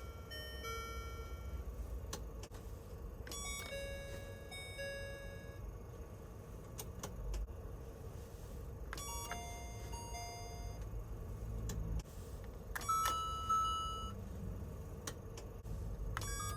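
Kyoto City Bus stop-request chime, reproduced: each time a short click followed by a two-note ding-dong. It sounds four times, a few seconds apart, at a different pitch each time, over a steady low rumble.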